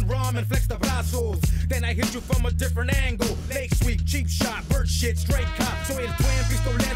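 Hip-hop track: a rapped vocal over a deep, steady bass line and a drum beat.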